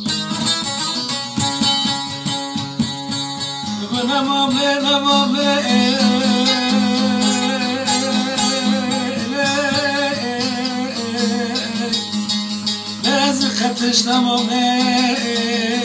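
Bağlama (saz) playing a Turkish folk tune (türkü): quick plucked notes over a steady drone, with the melody filling out from about four seconds in.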